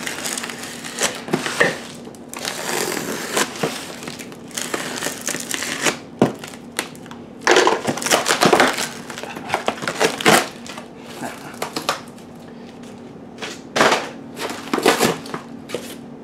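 Plastic wrap and packing tape crinkling and tearing as they are pulled off a cardboard shipping box, then the cardboard flaps being pulled open, in irregular bursts of rustling with several louder rips.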